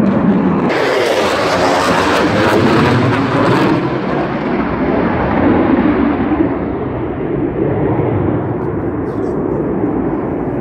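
F-15 Eagle fighter's twin turbofan engines as the jet passes overhead: loud jet noise, harshest and most hissy from about one to four seconds in, then slowly fading as the aircraft moves away.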